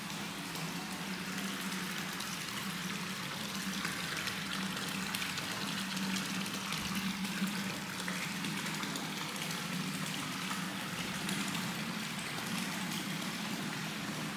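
Hot spring water pouring steadily from a pipe spout and splashing into a tiled bath, with a steady low hum underneath.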